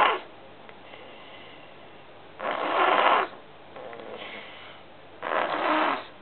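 Snoring in a steady rhythm: a loud snore on each breath, about every two and a half seconds, with a softer breath sound between them.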